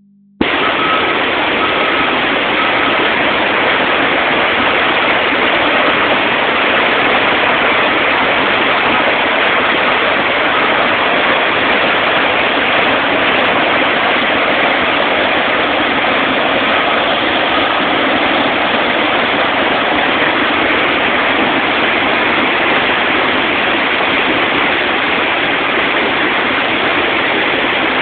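Floodwater rushing: a swollen creek pouring over and beside a road in whitewater, heard as a loud, steady rush of water.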